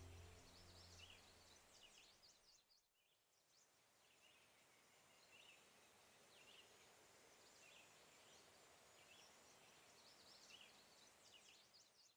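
Faint woodland ambience with small birds chirping in short, high calls every second or so, as background music fades out in the first couple of seconds.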